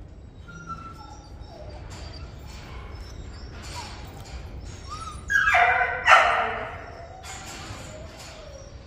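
Jindo puppies whimpering and yipping, with two louder yelps close together around the middle.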